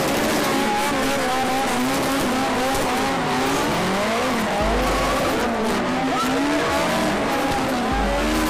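Car engine revving up and down over and over while a car drifts on tarmac, with tyres squealing and skidding.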